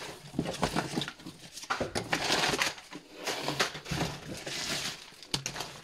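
Crumpled brown kraft packing paper being rustled and pulled out of a cardboard box, with crinkling in irregular bursts and the box's cardboard flaps being handled.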